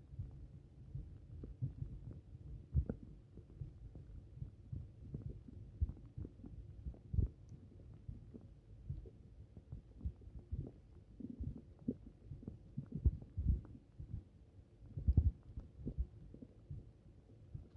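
Upset stomach rumbling and gurgling, heard close up: a steady low rumble with frequent irregular pops and gurgles. A few are louder, about seven seconds in and again near the end.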